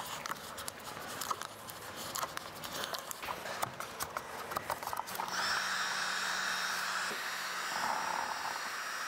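Small clicks and crinkles of vinyl wrap film being handled and pressed onto a plastic grille. About five seconds in, an electric heat gun switches on and runs with a steady whir, heating the film to shrink out its wrinkles.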